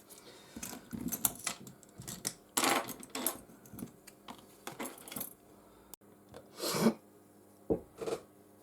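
Small metal hand tools clicking and tapping against the phone and work surface, with a few louder scrapes and clatters, as the phone is worked open to reach its cable connectors.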